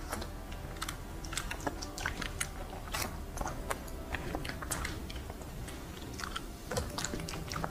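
A person chewing food, with many irregular crisp clicks and crackles, and paper food wrapping being handled.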